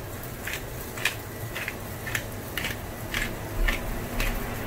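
Black pepper grinder twisted by hand, cracking peppercorns, with a short grinding click on each twist, about two a second.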